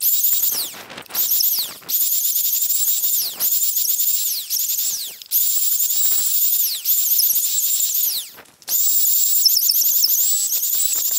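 Handheld electric planer cutting, chamfering the edge of a round timber post. It runs as a string of short passes with a high whine that dips in pitch as the blades bite, with brief breaks between passes.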